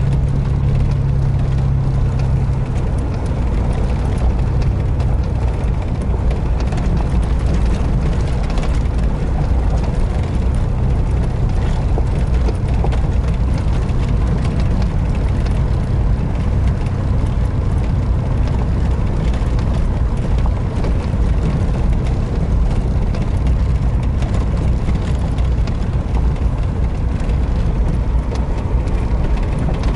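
Vehicle engine running steadily while the tyres roll over a wet dirt and gravel road, heard from inside the cab, with a light patter of small ticks from the road surface. The engine note drops a little about three seconds in.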